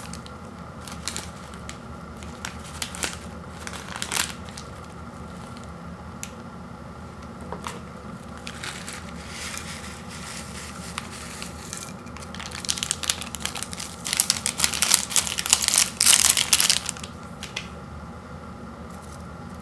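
Plastic instant-noodle packaging crinkling as it is handled: a few scattered crackles at first, then a longer, louder stretch of crinkling in the second half.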